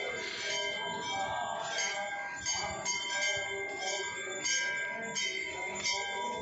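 Brass temple bells being rung, about two strikes a second, each strike ringing on into the next so the tones pile up.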